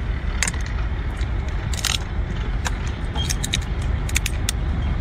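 Cooked shrimp shell being pulled apart by hand and bitten: scattered sharp cracks and crunches, coming more often in the second half, over a steady low background rumble.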